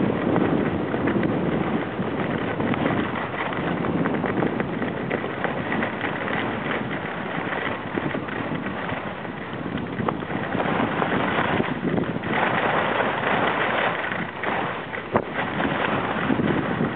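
Wind rushing over the microphone of a skier on a fast downhill run, with skis hissing and scraping over groomed snow. There is a single sharp click about fifteen seconds in.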